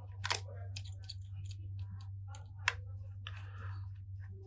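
Light clicks and brief scraping of a pentalobe screwdriver fastening the bottom screws beside the charging port of an iPhone XS Max, with two sharper clicks, one just after the start and one past halfway.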